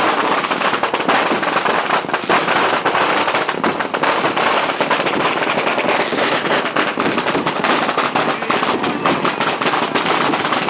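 Dense, continuous crackle of many firecrackers and fireworks going off together, sharp bangs overlapping with no break.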